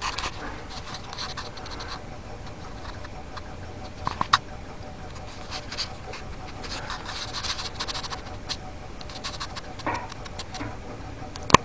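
KONTAX Stirling-engine stove fan running on a gas hot plate, a faint steady hum with scattered small clicks and scratches and one sharper click about four seconds in.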